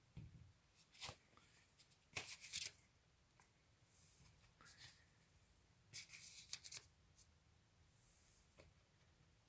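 Cardboard LP record sleeves being handled and slid off one another, giving a few faint, short scuffs and rustles of card on card.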